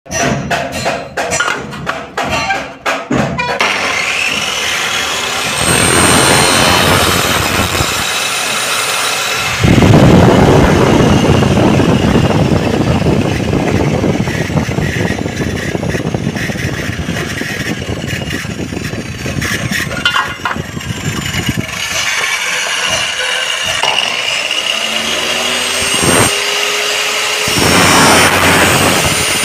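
Electric mitre saw running and cutting an aluminium profile with its toothed blade: the motor starts a few seconds in, and from about ten seconds in the cut through the metal is louder and harsher. Near the end a rising whine is heard.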